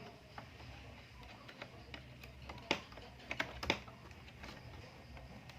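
Scattered small plastic-and-metal clicks and taps, irregularly spaced, as a laptop DDR3 RAM module is worked into its memory slot.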